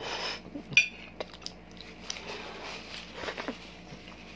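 Metal forks clinking and scraping on plates of instant noodles, with one sharp clink a little under a second in, amid scattered lighter taps and short bursts of noodle slurping.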